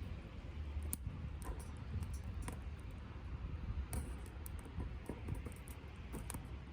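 Conifer wood burning in a small wood-gas camp stove: a steady low rush of flame with scattered sharp crackles and pops.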